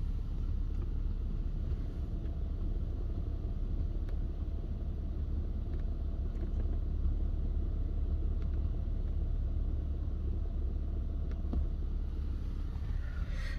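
A small click from behind the dashboard of a 2013 Audi S5 B8.5, about four seconds in, over a steady low cabin rumble. The owner suspects something shorted or loose behind the dash, which would also make the driver's-side tweeter and mid-range cut in and out.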